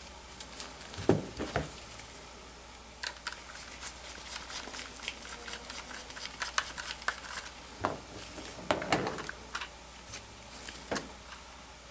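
Scattered light clicks, taps and rustles of gloved hands handling a model diesel locomotive while its coupler boxes and tiny body screws are taken off, with small parts and tweezers set down on a paper towel.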